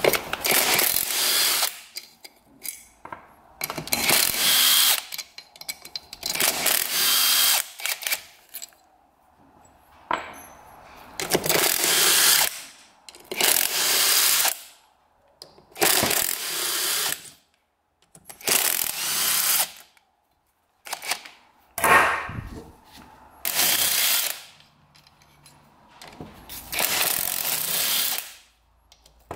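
Power drill/driver spinning out engine crankcase bolts in about a dozen short runs of a second or so each, with pauses between.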